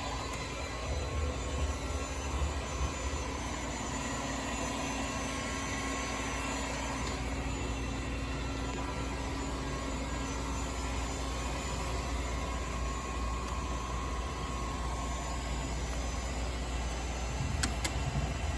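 Makino vertical CNC milling machine running with a steady mechanical hum and whine, its spindle turning at about 1,250 rpm. A couple of faint clicks near the end.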